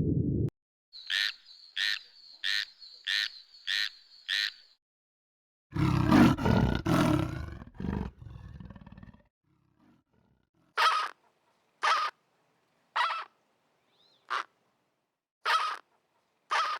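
Animal calls in three parts: a run of six short calls, then a loud roar lasting about three seconds, then six sharp calls about a second apart.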